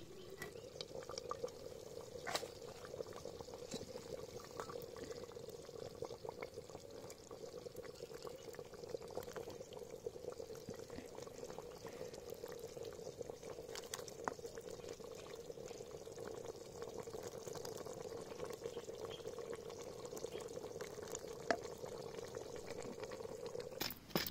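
Chicken curry boiling in a clay pot, a steady bubbling with scattered small clicks, as broth is ladled out and poured into a plastic bowl.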